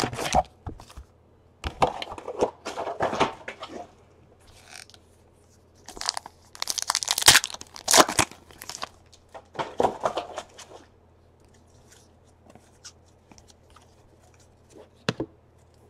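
Foil wrappers of 2017 Donruss baseball card packs being torn open and crinkled by hand, in several irregular bursts, the loudest a little past the middle. Near the end there are only faint light ticks of cards being handled.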